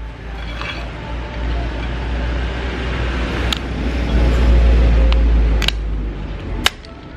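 Street traffic rumbling, swelling as a vehicle passes and loudest about halfway through. A few sharp clicks from the shell of a steamed mud crab being cut and pried with kitchen scissors.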